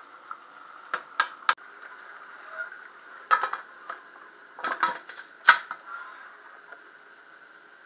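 Metal clicks and clanks of a pressure cooker and its lid being handled and closed. There are three quick clicks about a second in, then a cluster of louder clanks a few seconds later, the last the loudest.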